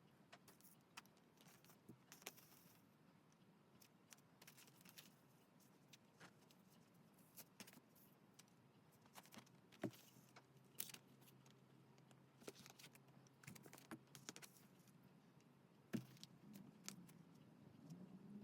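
Faint, scattered clicks, taps and light rustles of paper and small stationery being handled on a desk, with two sharper taps about ten and sixteen seconds in.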